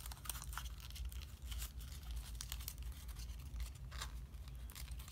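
Origami paper crinkling and rustling between the fingers as it is creased and pressed into folds: many scattered short crackles.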